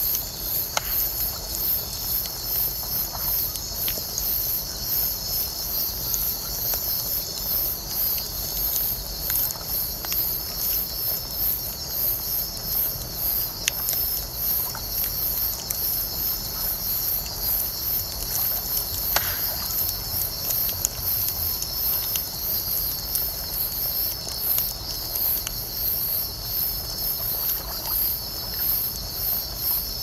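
Wood bonfire crackling, with scattered sharp pops, under a steady chorus of night insects such as crickets: one very high, evenly pulsing chirp and a lower, steadier trill.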